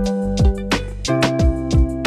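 Background music with held chords and a steady drum beat.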